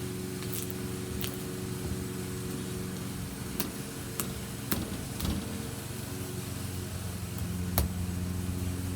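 Homemade slime being kneaded and stretched by hand: a few sharp clicks and pops, the loudest near the end, and some soft squelching in the middle. A steady low hum from an unseen machine runs underneath.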